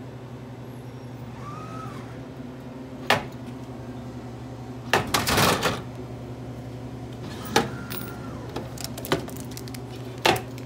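Pepsi vending machine with an elevator-type lift delivering a bottle of Gatorade over a steady hum, with two brief motor whines. About five seconds in there is a rattling clatter as the bottle arrives at the clear delivery port. Sharp clicks follow as the port door is worked and the bottle is taken out.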